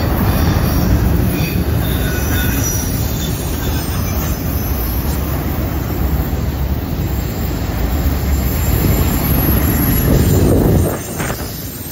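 Freight train of multi-level autorack cars rolling past: a loud steady rumble of steel wheels on the rails, with faint high wheel squeal from the curve in the first few seconds. The rumble drops off sharply near the end.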